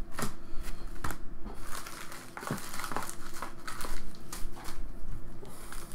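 Foil trading-card pack wrappers crinkling and crackling as they are handled, a few separate crackles at first and then a nearly continuous run.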